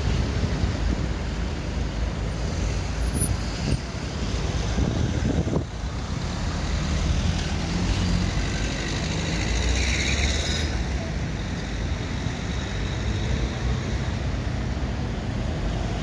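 Road traffic on a city street: cars and trucks passing with a steady low rumble, and a brief hiss about ten seconds in.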